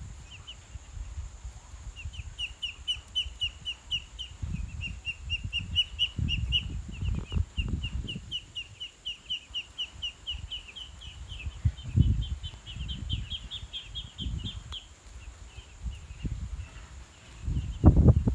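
A long, steady run of short, high chirping calls, about five a second, rising a little in pitch before stopping, over low knocks and rumbles of movement near the microphone.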